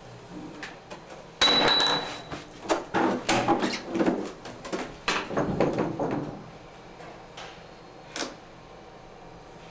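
A run of hard knocks and clatters, with a brief metallic ring at the first one, as metal tools or faucet parts are handled and set down; one more sharp knock comes near the end.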